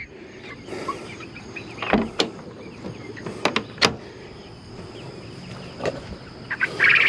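Chickens clucking softly, with a handful of sharp clicks and knocks and a couple of brief rustles.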